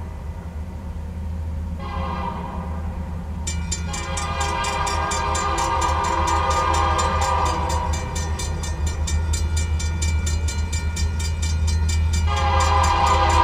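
Union Pacific EMD SD70M locomotive's horn sounding for the grade crossing as the train approaches: one blast about two seconds in, a longer one from about four seconds in, and another near the end, growing louder. From about three and a half seconds in, the crossing's warning bell rings with an even beat alongside.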